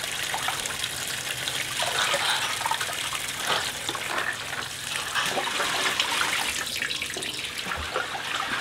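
Tap water pouring into a plastic bucket full of shredded raw potato, with wet splashing as handfuls of the potato strands are lifted and moved between buckets. The strands are being rinsed of their starch, which must wash out until the water runs clear so they don't stick together when fried.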